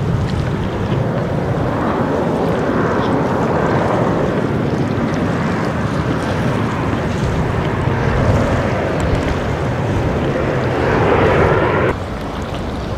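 Wind buffeting the microphone over the wash of water, with a steady low rumble beneath; the higher hiss drops away suddenly near the end.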